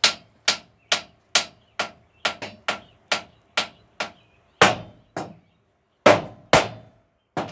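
A series of sharp knocks at about two a second, with a short pause and three heavier blows in the second half.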